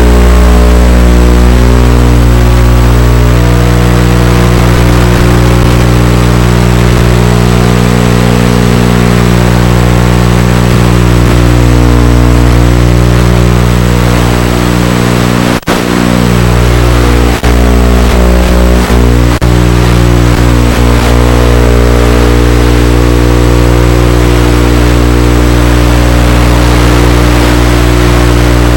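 FPV quadcopter's motors and propellers whining very loudly, with several pitches shifting as the throttle changes. The sound cuts out briefly about 15 seconds in.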